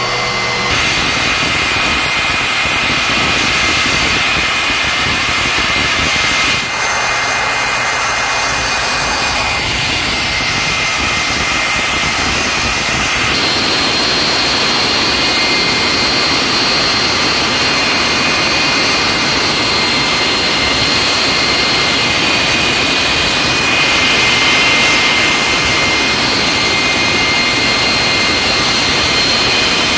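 A Westinghouse J34 turbojet running at part throttle, pushing a pontoon boat: a loud, steady rushing roar with a high whine held over it.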